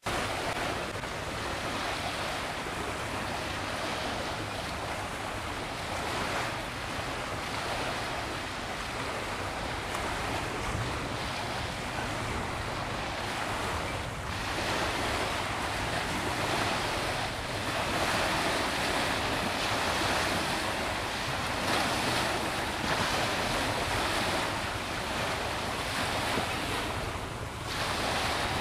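Steady wind blowing on the microphone over the sound of small waves on the water, swelling a little louder in the second half.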